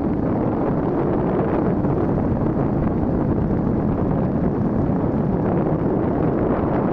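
Steady rush of wind buffeting the microphone together with the running noise of a moving vehicle, dense and low without any distinct engine note, unchanging throughout.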